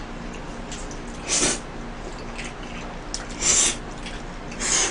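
A man slurping spaghetti noodles, three short slurps about a second apart near the middle and end, with chewing between.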